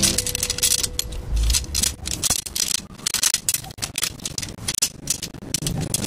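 Tent poles clattering and clicking against one another as a loose bundle of them, with metal ferrules, is handled and sorted: a busy run of irregular clacks and rattles.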